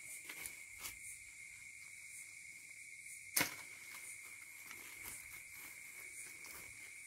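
Steady, high-pitched insect drone running without a break, with a single sharp click about three and a half seconds in.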